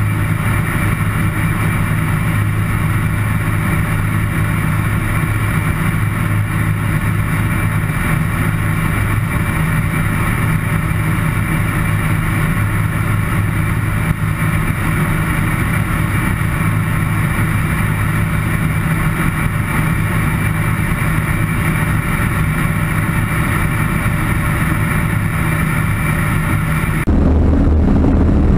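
Light aircraft engine and propeller running steadily in cruise, with wind noise over the airframe. Near the end the sound changes abruptly, becoming louder and lower.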